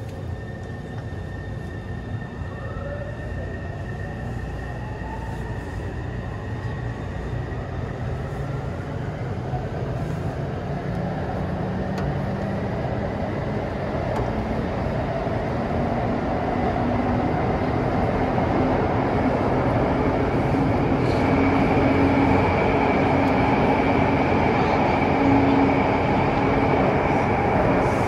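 Interior running noise of a Taipei Metro C301 train car pulling away and gathering speed. The traction motor whine climbs steadily in pitch, while the wheel and track rumble grows louder and then holds steady.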